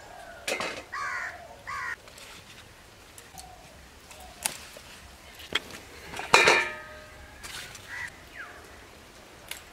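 Sharp knocks of a knife and brinjals being set into a stainless steel bowl, a few seconds apart; the loudest, about six seconds in, leaves a brief metallic ring. Two short harsh bird calls come near the start, and faint chirps near the end.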